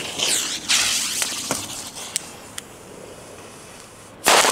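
Fuse of a Pyroland Crackling Beam firework hissing and spitting sparks as it burns, with a few sharp pops. About four seconds in, the firework goes off in a sudden loud burst of dense crackling.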